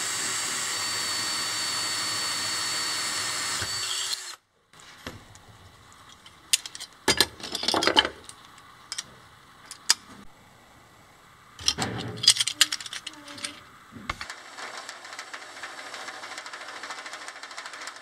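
Cordless drill running steadily with a high whine as it bores through a small steel part, stopping abruptly about four seconds in. Then clinks and clatter of metal parts and tools being handled, in two bouts.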